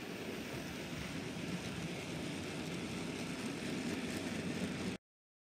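OO gauge model train running along the track: a steady rumble of wheels and motor that grows a little louder, then cuts off suddenly about five seconds in.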